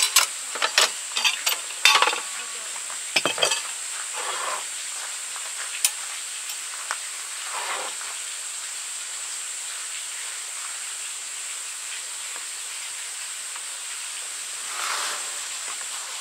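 Metal and glass parts of a Coleman Northstar gas lantern clicking and clinking as it is taken apart by gloved hands, a cluster of sharp clinks in the first few seconds, then only a few soft rustles. A steady high hiss sits underneath.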